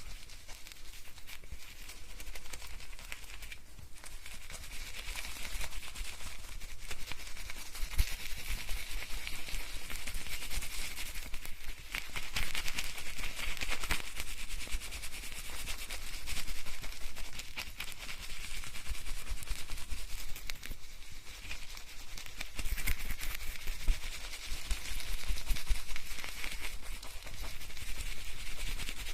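Fingers scrubbing shampoo lather through wet hair, recorded binaurally: a dense crackling, squelching hiss that swells and fades in waves every few seconds.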